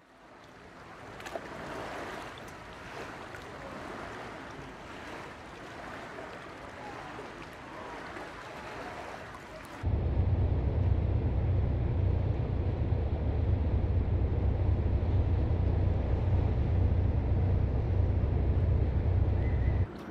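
About ten seconds of seaside ambience, a soft wash of small waves and wind, then abruptly the much louder, steady deep drone of a large TT-Line ferry under way.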